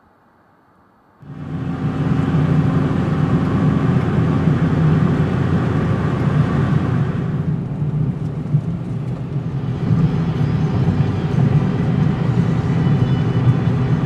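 Car driving along a mountain road, its engine and road noise heard from inside the cabin, starting suddenly about a second in and then running steadily.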